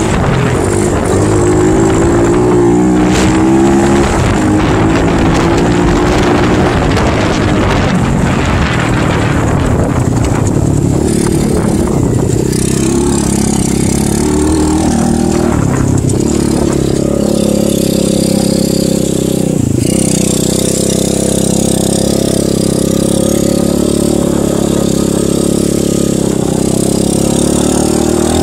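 Xpro Sail 125cc pit bike's single-cylinder four-stroke engine running under a rider, the revs rising and falling over the first ten seconds or so. After that it holds a steadier, lower pitch, with a brief drop about twenty seconds in.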